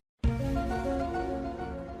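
Background music with held chords over a low bass, starting suddenly after a moment of silence.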